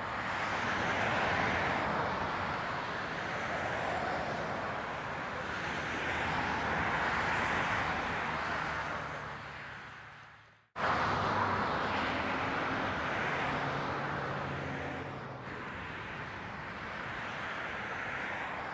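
Steady rushing outdoor noise that swells and fades in slow waves, with a faint low hum in places. It cuts out abruptly about ten seconds in and resumes at once.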